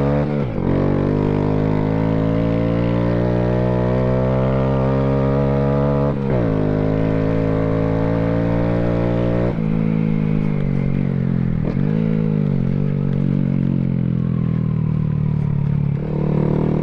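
Honda Grom's single-cylinder four-stroke engine running under throttle while being ridden. Its pitch climbs steadily, then drops sharply at several points: gear changes and throttle lifts.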